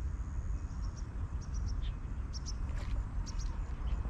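Small birds chirping in short, high calls, several times, over a steady low rumble of wind on the microphone.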